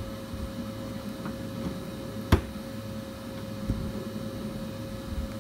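The steel lid of a wood-gasifier fuel hopper is set down with one sharp metal clank about two seconds in, followed by a softer knock, over a steady low hum.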